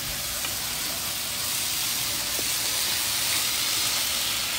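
Chicken fajita filling sizzling steadily in a hot frying pan.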